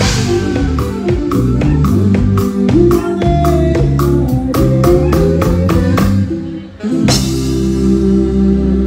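Live dance band playing: a drum kit keeps a steady beat under guitar and bass. After a short break about six and a half seconds in, the band hits a loud chord and holds it.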